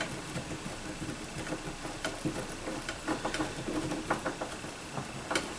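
Hand screwdriver turning screws into a plastic antenna housing: small, scattered clicks and light scraping as the screws are tightened.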